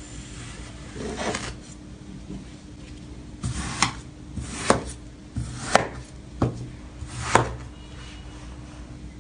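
Kinetic sand being cut with a knife: a soft sliding sound about a second in, then five sharp taps about a second apart as the blade goes through the sand and strikes the surface below.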